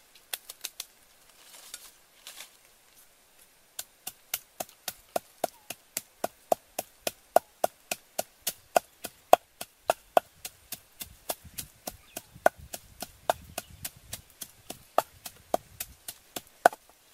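Wooden pestle pounding in a mortar: a few quick strikes at the start, then from about four seconds in a steady run of about three strikes a second, each a sharp knock with a short ring.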